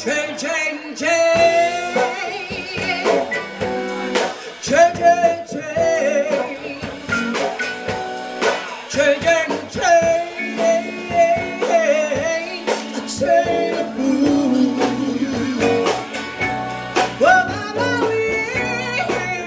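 Live band playing a blues-soul number: a woman singing lead over electric guitars, drums and keyboard.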